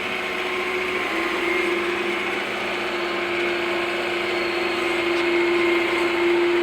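John Deere 9400's starter motor cranking continuously, a steady whine that steps up slightly in pitch about a second in. The engine is not firing: air in the fuel system from failed injector seals. The starter is run only to build hydraulic pressure for steering while the tractor is towed.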